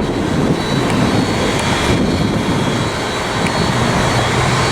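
Jet aircraft engines running steadily, a dense rush with a thin high whine.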